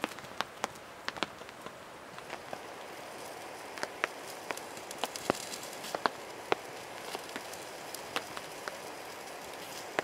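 Scattered sharp ticks and pops, irregular and a few a second, over a soft steady hiss.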